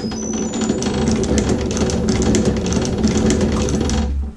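Wire stitcher on a test machine running, its head cycling to form and drive wire staples into a sheet of paper as test stitches: a steady motor hum under a rapid run of clicks. It stops about four seconds in.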